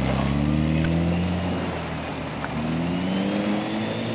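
Toyota Tacoma pickup's engine pulling away under a learner's clutch work, revs climbing, falling back about halfway, then climbing again.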